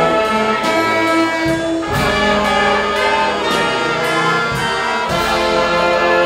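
A concert wind band of brass and woodwinds playing a tune, with held notes and chords at a steady, full level.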